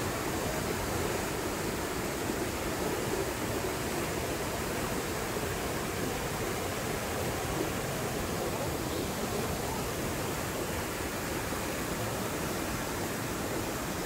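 Banias Stream rushing over rocks in whitewater rapids: a steady, even rush of fast-flowing water.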